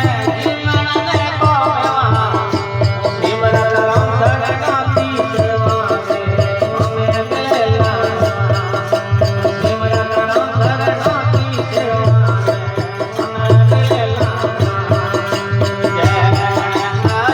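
Instrumental interlude of a Hindi devotional bhajan: a sustained melody instrument playing over a steady hand-drum rhythm, with no singing.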